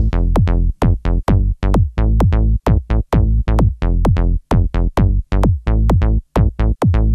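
Background electronic music with a fast beat of deep, heavy notes that each drop sharply in pitch, about three a second.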